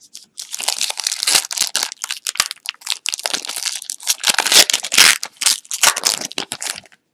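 Foil wrapper of a trading card pack being torn open and crumpled in the hands, a dense irregular crinkling and crackling that is loudest about two-thirds of the way through.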